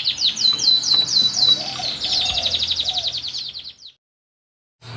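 Canary singing in rapid trills: fast runs of repeated high notes and a series of downward-sweeping notes. The song stops abruptly about four seconds in. After a brief silence, a low steady hum comes in at the very end.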